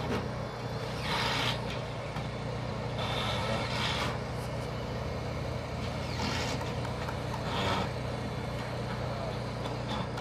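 Engine of a JLG telehandler running steadily at a low, even pitch, with short hissing rushes every second or two over it.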